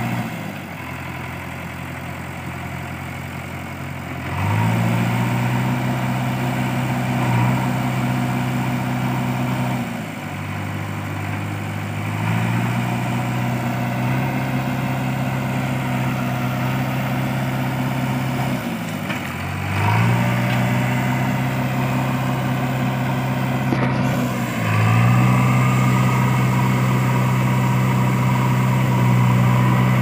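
JCB 3DX backhoe loader's diesel engine working under load, revving up to a higher steady note and easing back again four times, about 4, 12, 20 and 25 seconds in.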